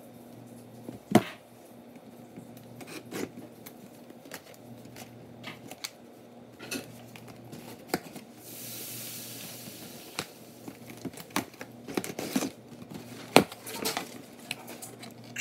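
Cardboard shipping box being opened by hand: scattered taps, knocks and scrapes of the box and a small cutter, with a sharp knock about a second in. A short hiss of the blade slitting the packing tape comes a little past halfway, and the cardboard flaps are pulled open near the end.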